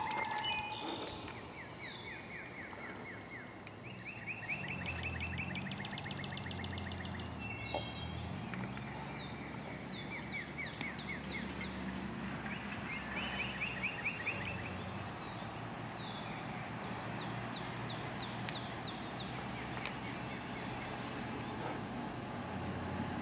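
Birds singing short, rapid high trills that repeat every second or two, over the low rumble of an ambulance's engine as it idles and pulls out.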